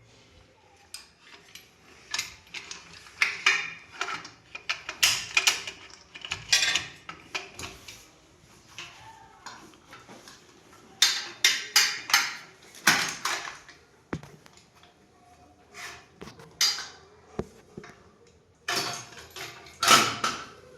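Metal washing machine stand parts clanking and clinking as they are handled and fitted, in irregular clusters of sharp knocks with short pauses between.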